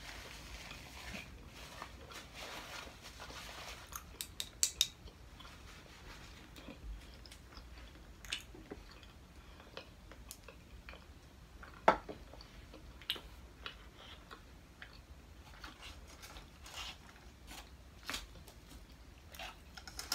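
Quiet eating sounds at a table. A paper napkin rustles against the face for the first few seconds, then come scattered small clicks and taps of chopsticks, bottles and dishes, with the loudest sharp click about twelve seconds in, and some chewing.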